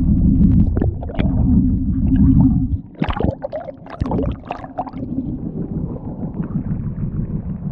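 Fishing boat's engine running with a low, steady rumble while a longline is hauled in. About three seconds in the rumble drops, and a quick cluster of knocks and clatter follows over the next two seconds.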